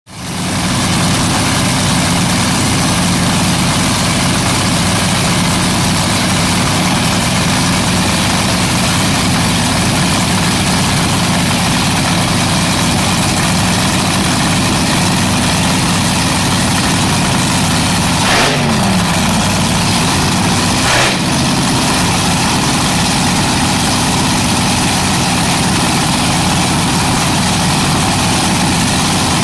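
Nitromethane-fuelled Daimler V8 dragster engine running at a steady idle, with two brief dips and swings in the engine note in the second half.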